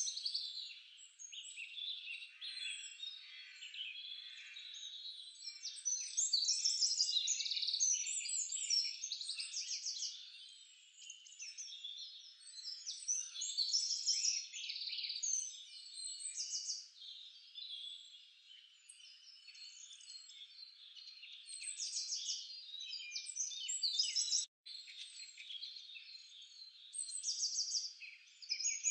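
Many small birds chirping and trilling at once: a continuous chatter of short rising and falling calls and rapid trills, with a momentary gap about three-quarters of the way through.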